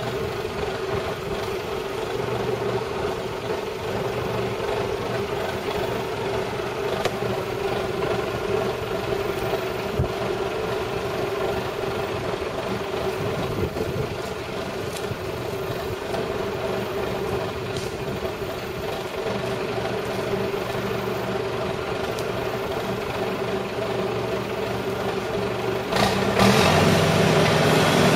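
John Deere crawler loader's engine idling steadily, then throttled up near the end, running markedly louder.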